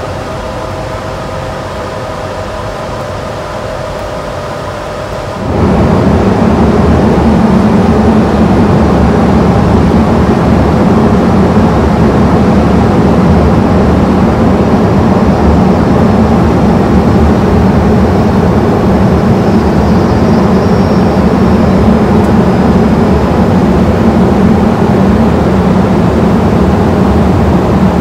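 Airbus A220 cockpit noise on final approach: a steady rush of airflow and engine noise. For the first five seconds or so it is quieter, with a few faint steady hum tones; then it abruptly becomes much louder, with a deeper drone underneath, and stays steady.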